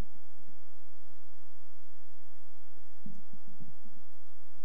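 Steady electrical hum with many evenly spaced overtones in the microphone's audio feed, with a few faint low thumps about three seconds in.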